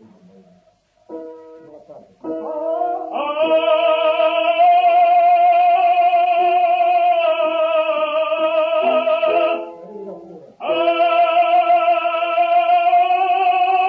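Old recording of a male opera singer with instrumental accompaniment. After a brief instrumental phrase, he sings a long held note with vibrato for about six seconds, stops briefly, then comes in on another long held note. The sound is thin and lacks highs, as on an early recording.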